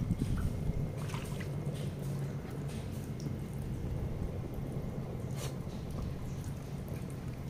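Garden-hose-fed splash-pad sprinkler jets spraying and trickling onto wet paving, with a steady low hum underneath and a few faint clicks and splashes.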